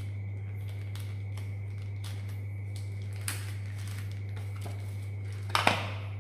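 Paper packaging being handled and unwrapped from an accessory: light crinkles and small clicks throughout, a sharper one about three seconds in and a louder rustling knock near the end, over a steady low electrical hum.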